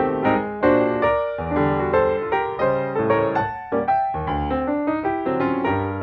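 Piano music from iMovie's stock library, a run of struck notes several times a second.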